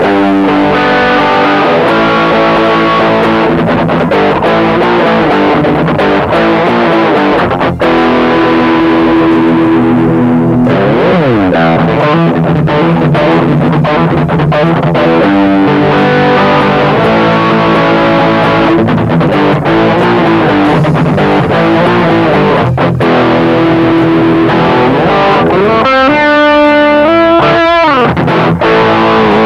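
Electric guitar played through a Caline High Peak distortion pedal with the gain at about noon: distorted chords and riffs, with a slide down and back up the neck about eleven seconds in and bent notes near the end. The pedal's bass control is being tried from fully cut, and the bass range stays tight, not boomy.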